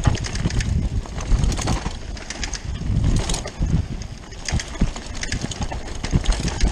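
Rockrider 540S mountain bike descending a rough dirt trail at speed, heard from an on-board camera: wind buffeting the microphone in uneven gusts, with frequent clicks, rattles and knocks from the bike over the bumps.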